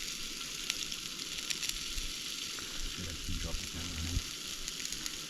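Steady crackling hiss with scattered faint ticks, and a faint low voice briefly about three seconds in.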